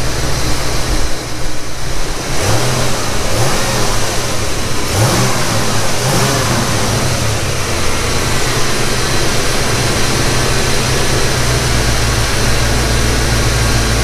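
A 1991 Ford Mustang GT's 5.0-litre V8 is blipped a few times on the throttle between about two and six seconds in, each rev rising and falling quickly. It then runs at a steady idle with no hunting, the sign that cleaning the throttle body and idle air bypass and fitting new gaskets cured the idle fault.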